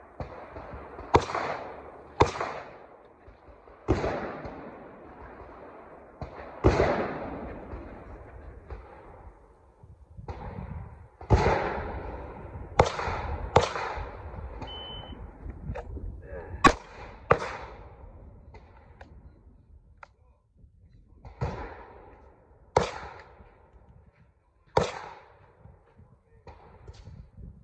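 Pistol shots on an outdoor range: about a dozen sharp reports, each with an echo tail, spread out in ones and twos over the whole stretch. A short high beep, the shot timer's start signal, sounds about fifteen seconds in, followed within two seconds by a pair of shots.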